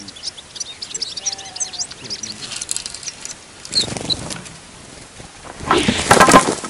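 Small birds chirping, then a short flutter of wings about four seconds in. Near the end comes a loud rushing swish as a sprung bird-trapping net sweeps over.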